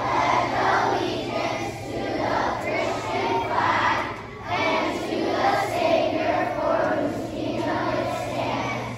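Many children's voices reciting a pledge together in unison, a dense chorus of young voices.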